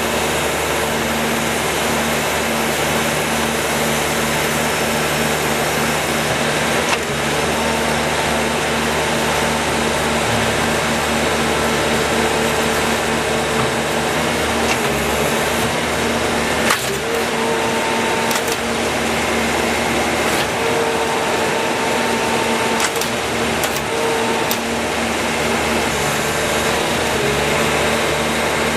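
Skid steer loader running steadily, driving a Bobcat 24PLA cold planer attachment, with held tones that come and go and a few sharp clicks about two-thirds of the way through.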